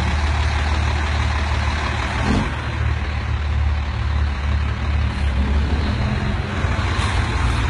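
Heavy timber truck's diesel engine running steadily close by, a low, even hum.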